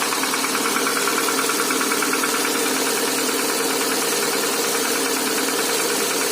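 Chevrolet Cruze's Z18XER 1.8-litre four-cylinder petrol engine running steadily after a cold start in sub-zero temperature, with a fast, even knock over the running.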